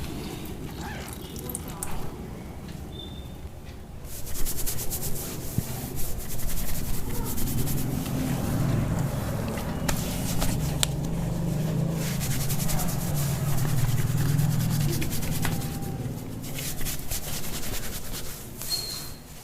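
A barber's fingertips scratching and scrubbing through hair and scalp during a shampoo head massage: a dense, rapid scratchy rubbing that comes in long stretches.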